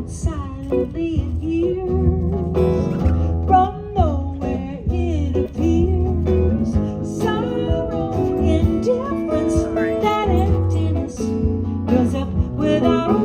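A song in progress: singing over guitar accompaniment.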